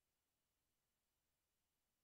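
Digital silence: only a very faint, even hiss.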